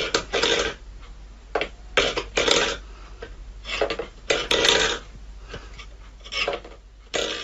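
Stainless steel food bowl scraping and clattering on a wooden floor as a cat paws and pushes it, in short irregular bursts.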